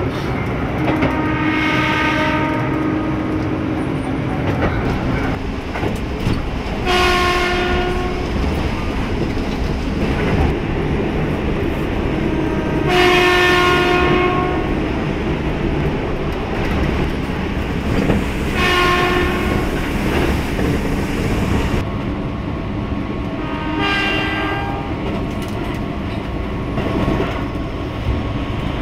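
Keihan electric train horn sounding about five times, in blasts a second or two long spaced several seconds apart, over the rumble and clickety-clack of the moving train.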